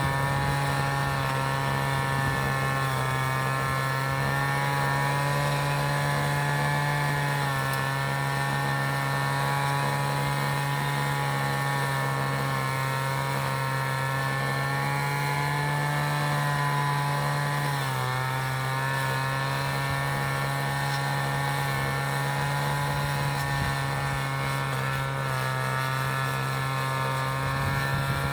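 City traffic noise dominated by a steady, low engine hum with many overtones, the pitch dipping slightly and recovering twice.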